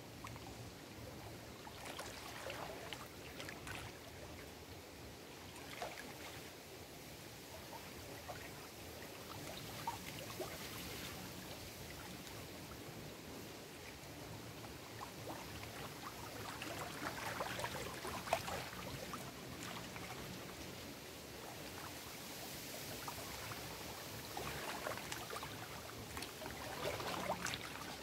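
Small lake waves lapping and splashing against rocks at the shoreline in irregular surges, with the splashes busier about two-thirds of the way in and near the end. Wind rustles through the reeds underneath.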